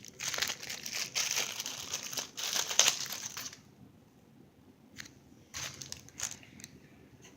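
Plastic wrapping crinkling and rustling as a squishy toy is handled and pulled from its bag. The crinkling is dense for about three and a half seconds, then drops to a few short, softer crinkles.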